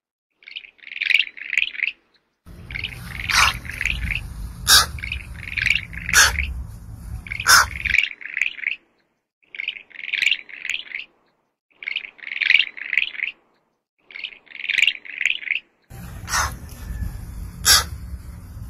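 Repeated high, chattering chirp calls, each a quick run of several notes lasting about a second, with short pauses between them. Sharp clicks and a low rumble come in twice, from about two seconds in and again near the end.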